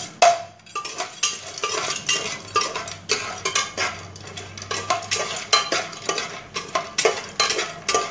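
A metal spoon stirring sandge (sun-dried lentil dumplings) as they shallow-fry in oil in a pressure cooker, scraping and clinking against the pot about twice a second.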